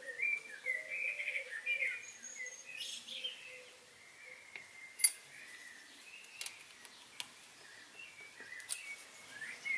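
Birds chirping faintly in the background, over a few sharp light metallic clicks and taps from a machine vise being handled and tightened on a mill table. The loudest click comes about halfway through.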